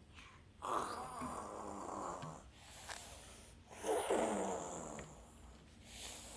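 A young child making two drawn-out wordless vocal sounds, the first starting about half a second in and the second about four seconds in, the voice sliding in pitch in each.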